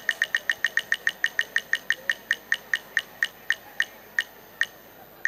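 Spin-the-wheel ticking: quick, even ticks at about nine a second that slow steadily to one every half second or so, stopping near the end as the wheel comes to rest.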